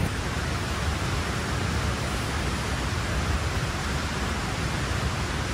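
Steady rushing outdoor ambience, an even noise with no distinct events.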